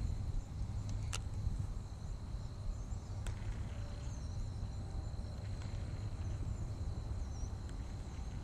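Outdoor wind noise on a body-worn camera microphone: a steady low rumble, with a steady high-pitched whine, a few faint bird chirps, and two or three sharp clicks from handling the rod and reel.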